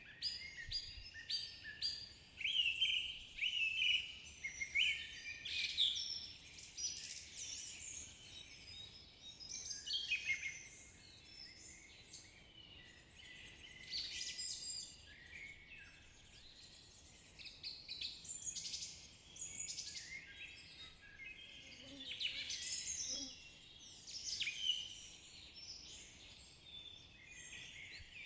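Several wild songbirds singing, with overlapping phrases of chirps and trills coming and going throughout, over a faint steady background hiss.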